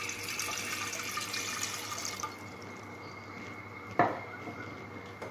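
A glass of water poured into a metal cooking pot, splashing for about two seconds and then dying away. A single sharp clink about four seconds in.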